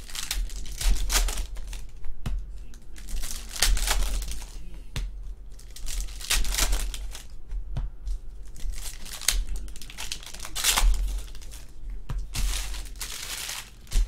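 Foil trading-card pack wrappers being torn open and crinkled by hand, in a string of short, irregular crinkling rustles.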